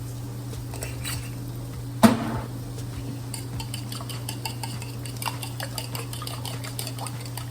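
Eggs being beaten in a bowl: a utensil clicks rapidly and unevenly against the bowl's side, after a single sharp clink about two seconds in. A steady low hum runs underneath.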